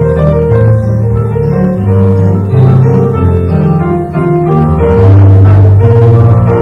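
Keyboard music: slow held chords over a deep, sustained bass line.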